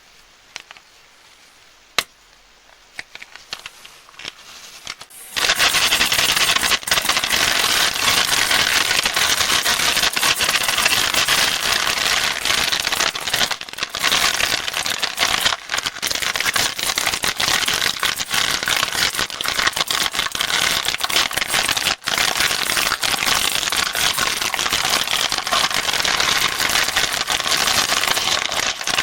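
A few sharp clicks, then about five seconds in a dense, continuous crackling of candy packaging being handled, like a plastic sweet wrapper being crinkled and torn open.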